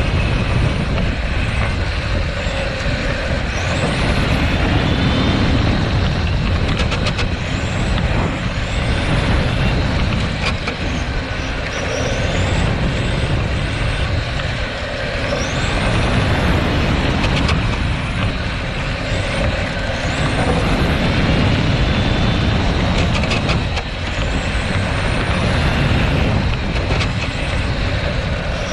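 Radio-controlled car's motor and drivetrain heard from a roof-mounted camera while it laps a track: a high whine rises in pitch again and again, every few seconds, as it accelerates, over a constant heavy rumble of the chassis and wheels on the track surface.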